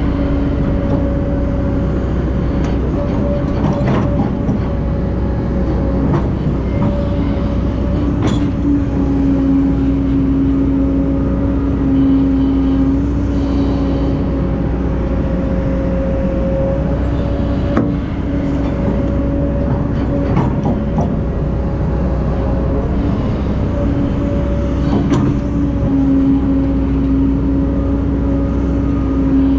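Heavy diesel earthmoving machinery, excavator and dump truck, running steadily with a low rumble and an even hum, with a few sharp knocks of metal on metal spaced through it.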